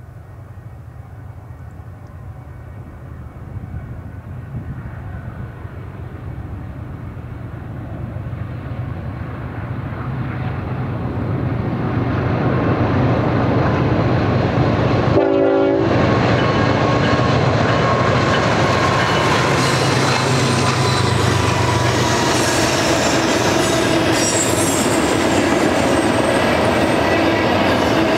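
BNSF diesel freight locomotives approach and pass, their low engine rumble growing louder over the first dozen seconds. Then comes the steady rolling roar and rail clatter of double-stack container cars going by. There is a brief break in the sound about halfway through.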